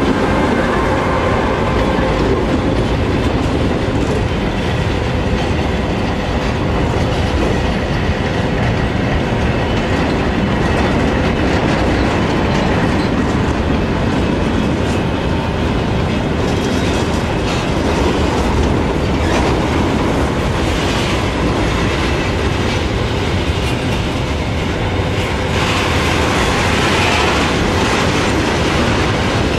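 A long, heavy freight train of covered sliding-wall wagons rolling past close by, a steady loud rumble of wheels on the rails.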